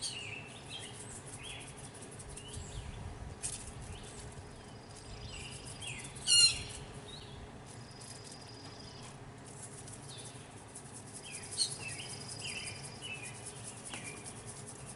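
Wild birds chirping and calling on and off, with insects buzzing in high thin held notes now and then; one bird call about six seconds in is the loudest sound.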